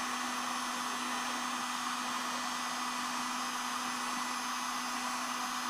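Electric heat gun running steadily, its blower giving an even rush of air with a steady low hum underneath.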